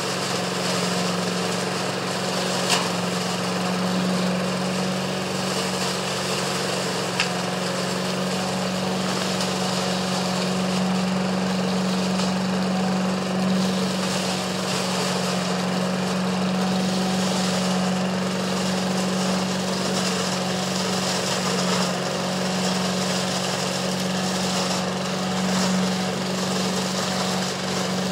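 Homemade trailer-mounted leaf vacuum running steadily, its engine-driven blower humming under a rush of air as the wide flexible hose sucks up dry leaves. Two sharp clicks stand out, about 3 and 7 seconds in.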